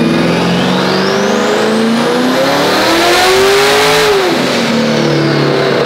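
Twin-turbo C8 Corvette V8 revving up under load on a chassis dyno, its pitch climbing for about four seconds with a rising turbo whistle, then dropping as the throttle comes off and settling to a lower steady run.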